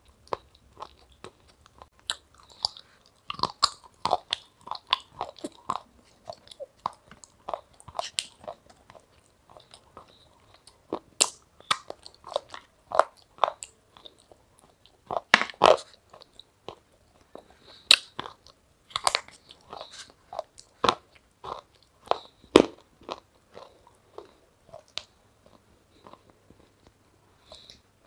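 A person biting into and chewing a hard, ice-cream-coated treat: irregular sharp crunches with chewing between them, the loudest bites a little past halfway.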